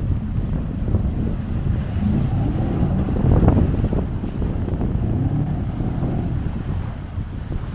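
Wind buffeting the microphone: an uneven low rumble that rises and falls with the gusts.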